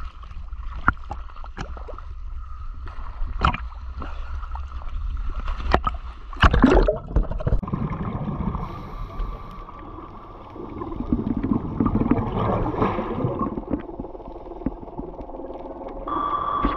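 Water sloshing and splashing against an action camera at the surface, with sharp slaps, then a loud rush of water about six and a half seconds in as the camera goes under. After that, steady underwater noise with gurgling.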